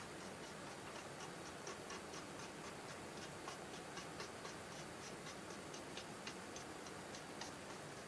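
Faint, quick light ticking, about four ticks a second and a little uneven, over a low steady hiss.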